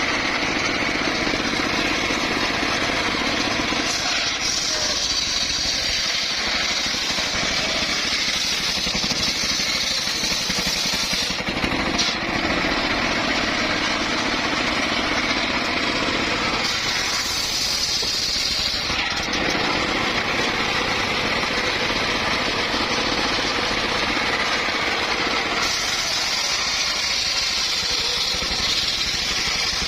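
Circular saw running steadily as it cuts through wood. The sound grows brighter and harsher in three stretches, about 4 to 11 seconds in, around 17 to 19 seconds, and from about 25 seconds to the end.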